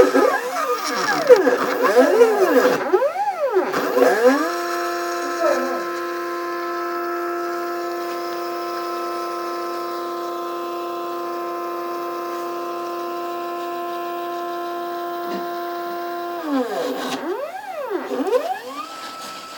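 Stepper motors of a homemade mini CNC plotter driving its axes: a whine that sweeps up and down in pitch again and again as the axes speed up and slow down, then holds one steady pitch for about twelve seconds during a long constant-speed move, before the rising and falling sweeps return near the end.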